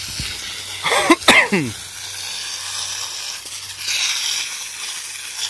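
Garden hose spray nozzle hissing steadily as a thin jet of water sprays onto grass. About a second in, two quick, loud squeals fall sharply in pitch.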